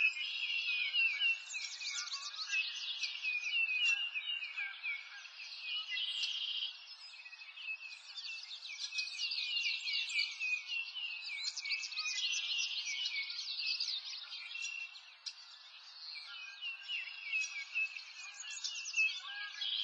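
Many small birds chirping and trilling over one another, a dense chorus of short high calls that never stops, over a faint soft background hiss. It thins out briefly about three-quarters of the way through.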